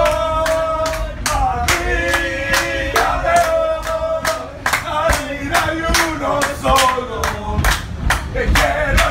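A group of football fans singing a chant together in long, drawn-out notes, with steady group handclaps about three times a second, inside a subway car.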